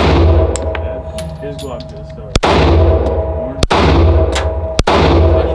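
Handgun shots at an indoor range: three sharp reports a little over a second apart, each followed by a loud echoing boom off the walls. The echo of a shot fired just before carries in at the start.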